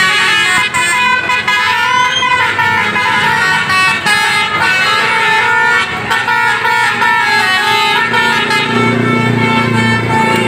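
Basuri telolet bus horn playing a melody: a continuous run of multi-tone horn notes changing pitch one after another.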